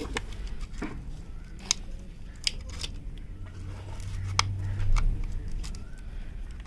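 Light scattered clicks and scratchy handling noises as a piece of insulating paper is worked in by hand under a starter motor's brush holder plate, against metal parts, with a low steady hum underneath that swells about four seconds in.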